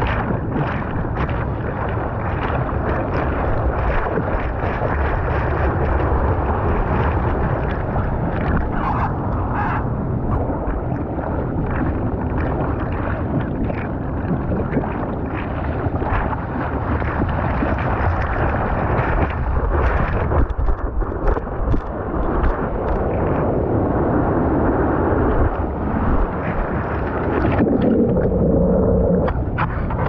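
Sea water sloshing and splashing against a surfboard, with irregular splashes throughout and wind rumbling on a microphone that sits just above the water.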